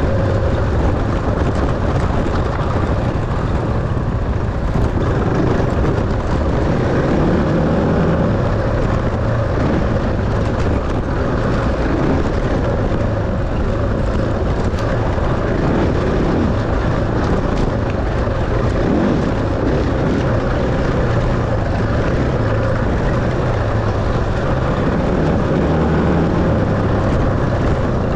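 Enduro dirt bike engine running steadily at race speed.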